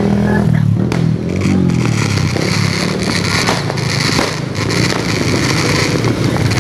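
A motorbike-type engine revving up and down, with scattered firecracker pops.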